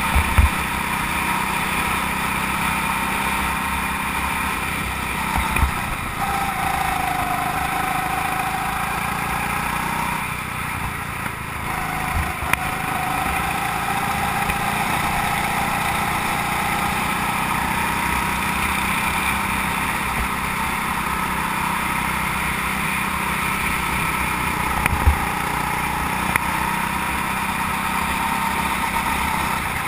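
Go-kart engine running at speed, heard close from on board. Its pitch sags briefly about ten seconds in and then climbs back steadily, with a few short low thumps along the way.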